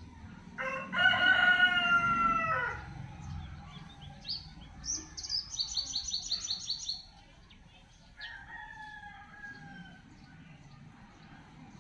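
A rooster crows once, a loud call of about two seconds, followed by a small bird's rapid high-pitched chirping, and a fainter second crow a couple of seconds later.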